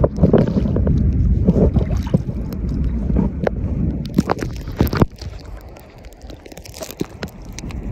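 Wind rushing over a phone's microphone on a moving boat, with a low rumble underneath. About five seconds in it drops sharply, leaving clicks and rubbing from fingers handling the phone, and it builds again near the end.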